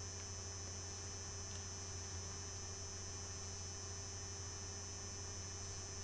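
Steady low electrical hum with faint hiss, unchanging throughout; no other distinct sound.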